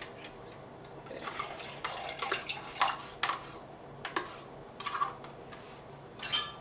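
Last of the yogurt being scraped and tapped out of a plastic yogurt cup into a blender cup: a run of short scrapes and light knocks, with a sharper clatter near the end.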